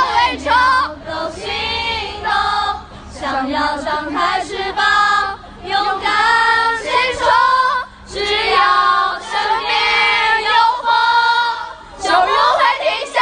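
A crowd of young women's voices singing together in unison, in phrases of a second or two with short breaks.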